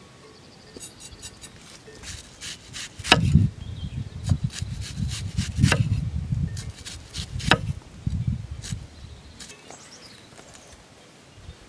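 Kitchen knife tapping and knocking on a wooden cutting board while a red onion is cut: a run of irregular clicks and a few heavier knocks, the loudest about three seconds in.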